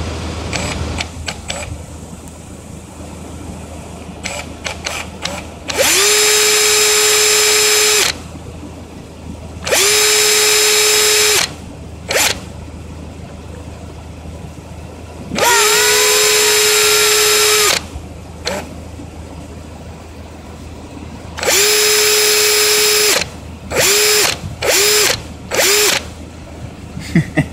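Cordless drill motor spinning up and running in spurts with a steady whine: four runs of about two seconds each, then three quick blips near the end.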